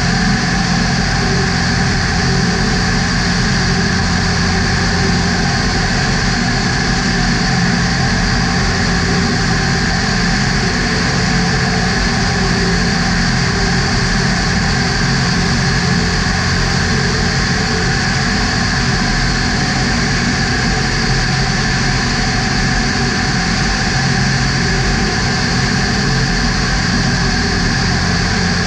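Small survey aircraft's engine and propeller droning steadily from inside the cabin, an even drone layered with several fixed tones, unchanging throughout.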